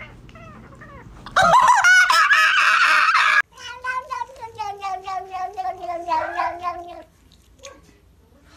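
Two domestic cats meowing. An orange cat gives a loud, long, wavering yowl that starts about a second and a half in and cuts off sharply. Then a brown tabby cat makes a long drawn-out meow with a fluttering quality that slides slowly down in pitch and ends about seven seconds in.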